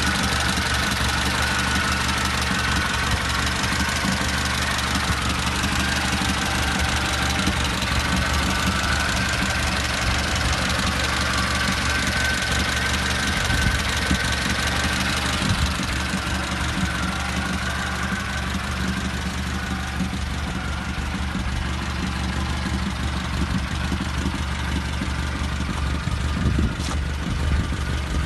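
Volkswagen Golf engine idling steadily with a fast, even ticking knock from the valve train, which the owner takes for knocking hydraulic lifters.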